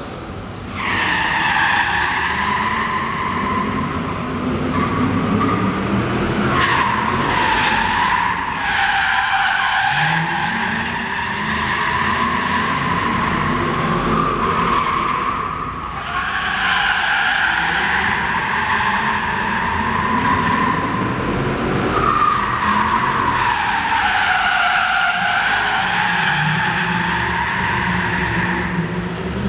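Ford Mustangs' tyres squealing in long, wavering screeches that fall and rise in pitch as the cars slide around a tight track, with their engines running underneath. The squeals come in several long stretches, with brief lulls about six and sixteen seconds in.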